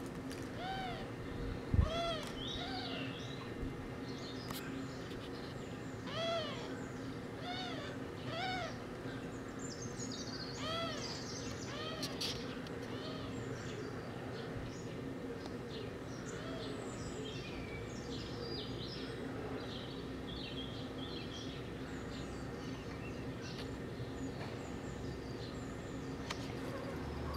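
A cat gives a string of short meows or chirps, each rising and falling, often in pairs, over the first ten seconds or so. After that, birds chirp in the background. There is one sharp thump about two seconds in.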